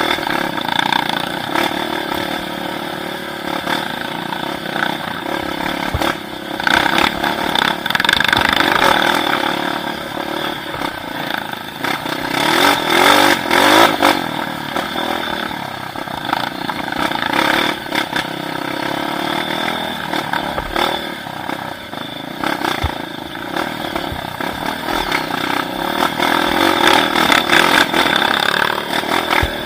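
Motorcycle engine running steadily, with the revs rising and falling; it is loudest a few times along the way.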